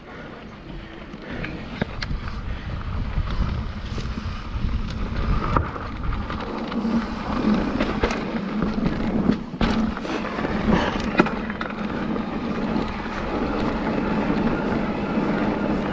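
Mountain bike rolling over a dirt trail: tyre noise with rattles and sharp clicks and knocks from the bike. It gets louder over the first few seconds as the bike picks up speed.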